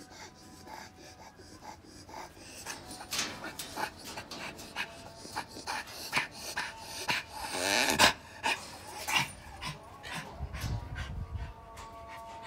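Senior dog panting in short, quick breaths, with one louder, longer breath about eight seconds in.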